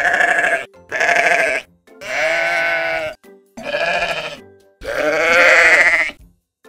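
Sheep bleating: five loud separate calls, the longer third and fifth ones quavering. Soft background music plays faintly between the calls.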